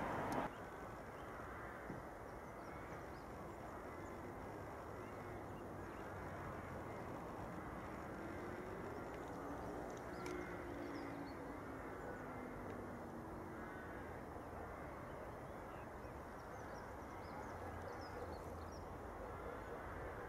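Faint outdoor railway-line background: the DB class 218 V12 diesel-hydraulic locomotive 218 413-3 approaching from a distance with a low, steady engine sound, while birds call now and then. The louder sound of a passing train cuts off suddenly about half a second in.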